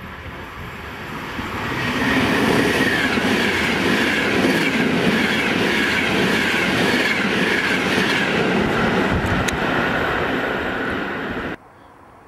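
Electric passenger train passing close by at speed: the noise builds as it approaches, then stays loud with rushing air and rapid wheel clatter as the carriages go past. It cuts off abruptly near the end.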